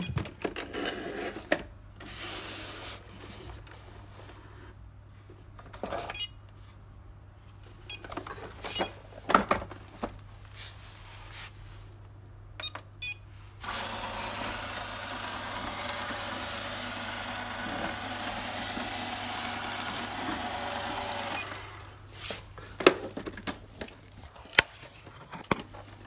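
Polaris EVO robot vacuum cleaner running: a steady whirr of its suction motor and brushes for about eight seconds, starting about 14 seconds in and then stopping. Scattered clicks and sharp knocks from the robot being handled come before and after.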